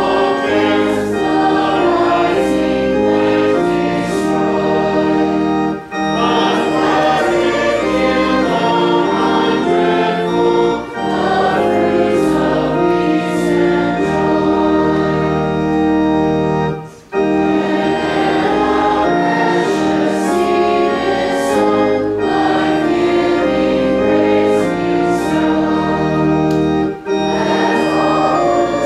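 Congregation singing a hymn with organ accompaniment in sustained chords, pausing briefly between lines four times, the longest about two-thirds of the way through.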